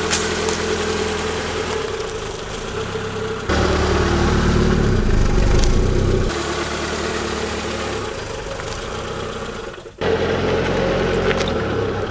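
Car engine idling as the car creeps forward at walking pace, a steady low hum that jumps in level and tone three times where the clips change. A couple of sharp faint ticks stand out, one near the middle and one near the end.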